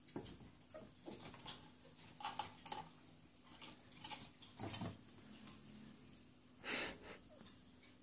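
Ferrets scrabbling in and around a wooden nest box on a tabletop: scattered light scratches and taps, with one short, louder noisy sound about seven seconds in.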